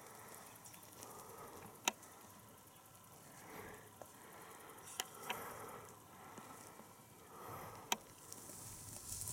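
Slow, careful footsteps rustling through dry grass, about one every two seconds, with three sharp clicks about three seconds apart over a faint steady high hiss.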